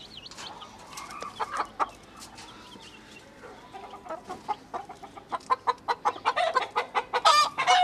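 A broody hen and her chicks calling: scattered clucks and peeps, which come faster and louder over the last few seconds.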